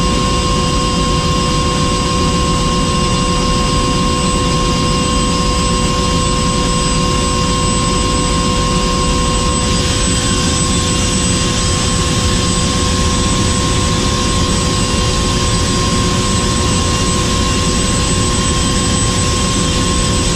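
Helicopter engine and rotor running steadily: a loud, constant noise with several steady whining tones over it.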